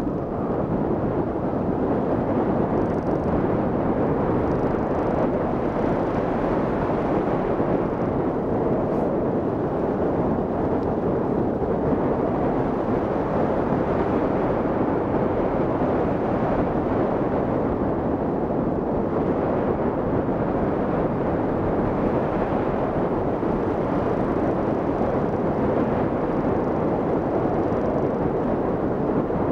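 Steady rush of airflow over the camera microphone as the hang glider flies, an even, unbroken noise with no engine tone.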